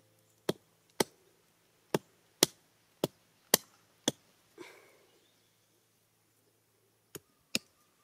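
Small hatchet chopping into a thin wooden stick: sharp, separate blade strikes, seven of them about half a second apart, then a brief softer scrape, a pause, and two more strikes near the end.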